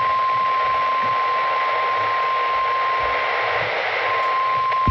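NOAA Weather Radio's 1050 Hz warning alarm tone, a steady high tone over a hiss of radio static, with a sharp click near the end. The tone is the alert that a warning message is about to be broadcast.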